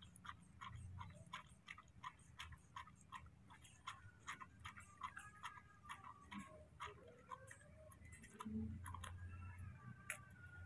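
Baby monkey sucking milk from a bottle: faint rhythmic sucking clicks, about three a second, with thin squeaks in the second half.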